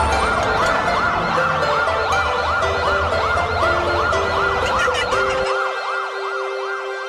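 An emergency-vehicle siren wailing up and down quickly, about three sweeps a second, over a line of steady held notes. A low hum under it stops about five and a half seconds in.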